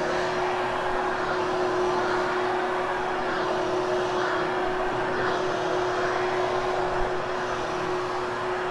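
Hoover HushTone upright vacuum cleaner running steadily over damp carpet, a constant motor hum with a steady airflow rush.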